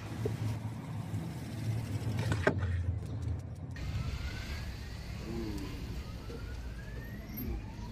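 Street traffic: a motor vehicle's engine running past, rising in pitch twice as it accelerates, over a steady low rumble.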